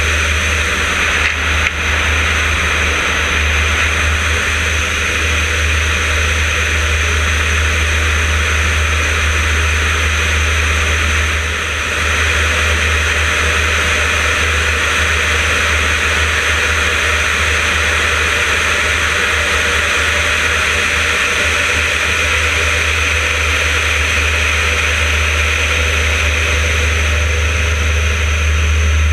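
Yak-52's nine-cylinder M-14P radial engine and propeller running steadily in flight, with a heavy low drone and rushing airflow noise, heard from a camera mounted on the wing.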